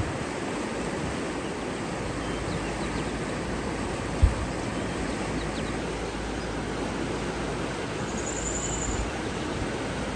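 Steady rushing water, an even noise throughout, with a few faint, brief high bird chirps in the middle and a short high bird trill near the end. A single low thump comes a little over four seconds in.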